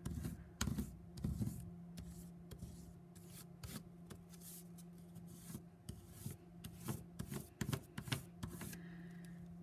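Crayon held on its side and rubbed back and forth over paper laid on a textured cardboard collagraph block, a run of short, irregular strokes.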